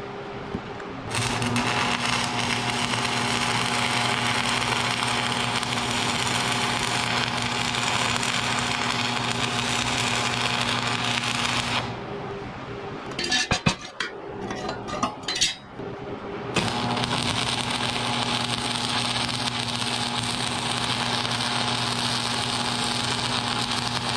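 Arc welding on thick steel plate: two long runs of steady hiss with a low hum from the welder, the first lasting about ten seconds and the second starting about two-thirds of the way in. In the pause between them come a few sharp metal clanks.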